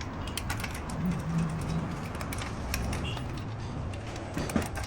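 Scattered light metallic clicks and clinks of parts and tools being handled, over a steady low hum.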